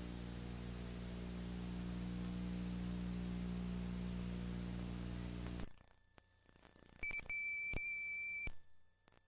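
Steady electrical hum with hiss, the noise floor of an old film-to-video transfer with no sound of its own, which cuts off suddenly about halfway through. A few clicks follow, then one high steady beep of about a second and a half.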